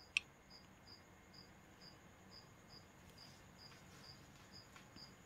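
Near silence with a cricket chirping faintly in short high chirps about twice a second, a little faster near the end. A single sharp click just after the start.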